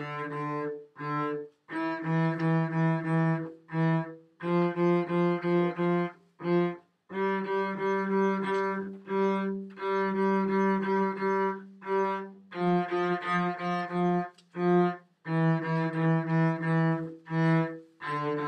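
Solo cello bowed on the D string, playing a simple beginner tune. Short repeated notes step up from open D through E and F to G, which is held longer in the middle, then come back down to D, with brief breaks between phrases.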